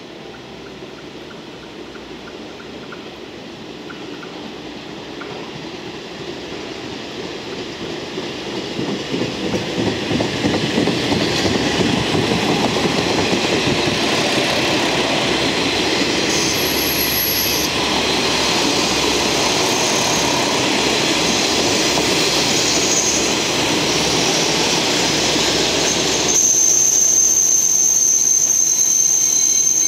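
A five-car train of JNR KiHa 40-series diesel railcars (KiHa 40 and KiHa 47) running past on the track beside the platform: engine rumble and wheel clatter growing louder over the first ten seconds or so, then holding steady. A high-pitched metallic squeal from the train sets in suddenly near the end.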